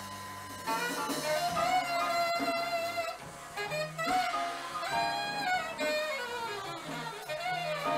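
Live small jazz band playing: a saxophone carries a slow melody of held notes over bass and drums.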